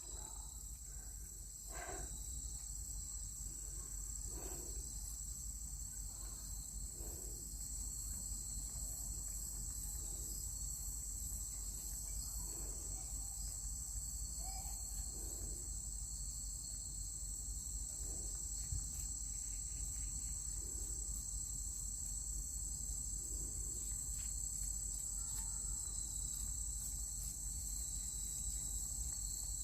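Crickets chirping steadily in a continuous high-pitched drone, with faint soft sounds recurring about every two and a half seconds underneath.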